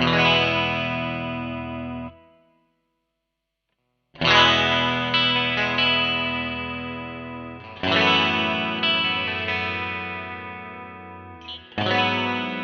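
Fender Stratocaster electric guitar played through the MOOER GE200 multi-effects unit's 'SWEETY' preset. A chord rings and is cut off about two seconds in. After a short silence, three more chords are struck, each left to ring and fade.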